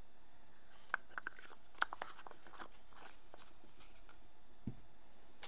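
Plastic powder jar and its lid handled by hand on a table: a few light clicks and taps, with one soft knock near the end.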